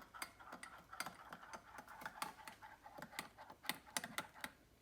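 Teaspoon stirring in a cup of cappuccino, making many light, irregular clinks against the cup, stopping shortly before the end.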